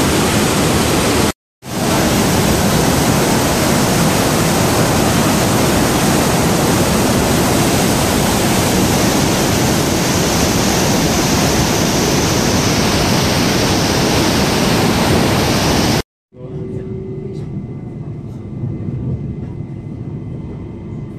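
The Rhine Falls waterfall, heard close up: a loud, steady rush of water, broken by a momentary dropout about a second in. About sixteen seconds in it cuts to a much quieter steady rumble with faint clicks, a train running.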